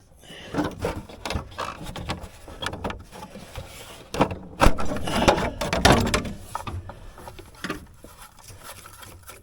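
Irregular knocks, clicks and rubbing from hand tools and metal parts being handled while a compact tractor is taken apart, loudest about halfway through.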